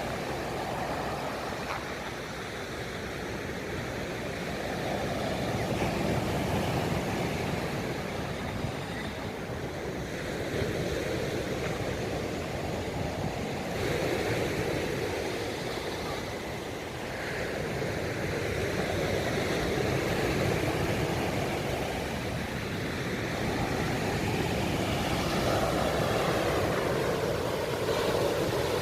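Sea waves breaking on a sandy beach, a continuous rush of surf that swells and fades every few seconds.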